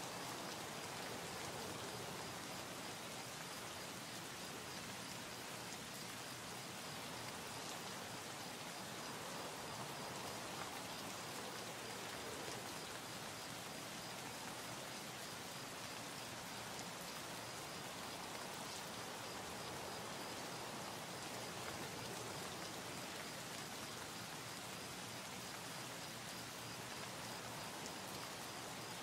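Steady, even rain-like hiss with no distinct events, and a faint high steady tone beneath it.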